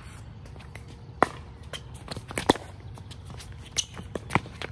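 Pickleball rally: hard paddles striking the plastic ball in a string of sharp pocks roughly a second apart, the loudest about halfway, with lighter ticks between.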